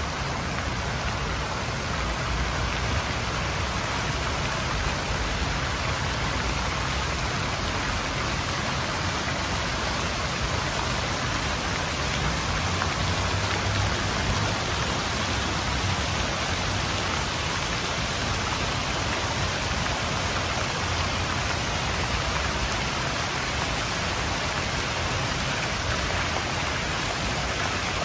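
Fountain water splashing steadily: jets falling back into a pool and many thin streams pouring over the rim into a channel below.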